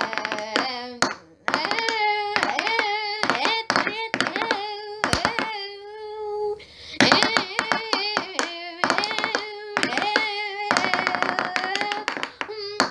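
A high voice singing long, wavering notes over a fast, uneven patter of sharp clicks.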